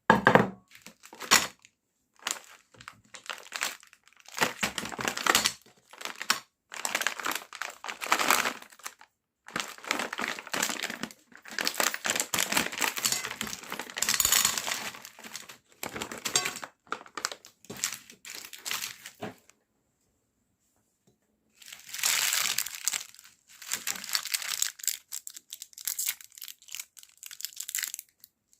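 Meat grinder crushing colourful candy: crinkling, crunching noise in irregular bursts lasting a second or two each, with a short pause about two-thirds of the way through.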